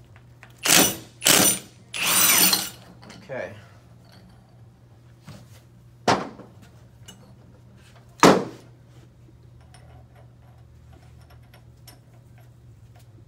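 Cordless impact wrench firing three short bursts within the first three seconds, the last the longest, as it spins the regular-thread nut off the secondary pulley shaft of a JF011E CVT counterclockwise. Two sharp knocks follow a few seconds apart.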